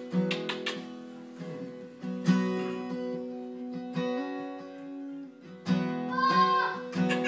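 Acoustic guitar strummed slowly, one chord stroke every one and a half to two seconds left to ring, moving through a chord change: the instrumental intro of a country song before the singing comes in.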